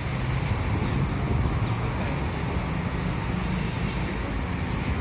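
Steady roadside traffic noise with wind on the microphone, and a vehicle engine's low hum a little stronger for the first few seconds.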